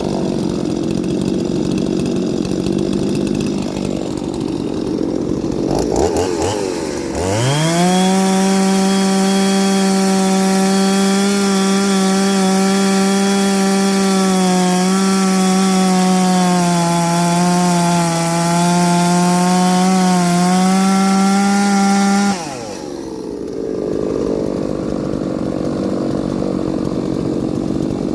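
Ported two-stroke chainsaw cutting wood. About a third of the way in it revs quickly up to full throttle and holds a steady high-pitched note, sagging a little under load near the middle. After about fifteen seconds the note drops off suddenly, and a rougher, less even chainsaw sound carries on before and after.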